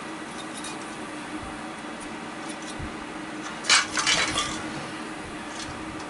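Handling noise from a ceiling fan being taken apart: the plastic switch housing and a screwdriver clicking and clinking against the fan and the metal bench, with a cluster of sharp knocks a little past halfway.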